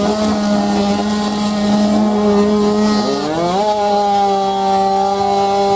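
Tuned two-stroke scooter engine held at high revs with a steady high-pitched drone, climbing to a higher pitch about three seconds in and holding there.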